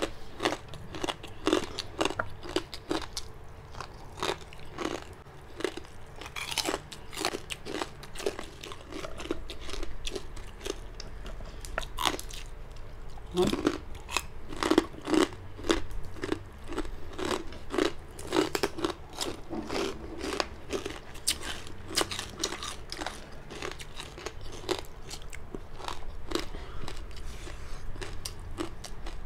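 Two people crunching and chewing crispy chicharon bagnet (deep-fried pork belly bites), a rapid, uneven run of sharp crunches from each bite and chew.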